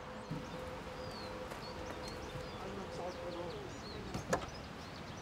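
Škoda Superb Combi's electric tailgate motor whirring steadily as the powered tailgate moves. The whir winds down about three and a half seconds in, and a sharp click follows a moment later.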